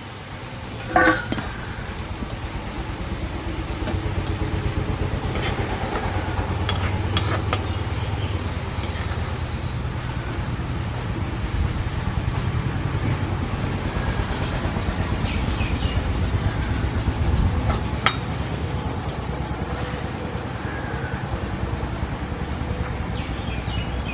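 Onion slices frying in oil in an aluminium wok over a wood fire: a steady low rumbling noise, with the perforated metal spoon clinking and scraping against the wok a few times, the loudest ringing clink about a second in.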